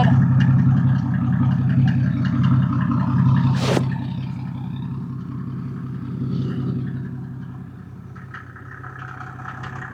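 The 1991 Mercedes-Benz 350 SDL's 3.5-litre turbo-diesel straight-six idling steadily, growing fainter over the last few seconds. A single short sharp noise cuts through about three and a half seconds in.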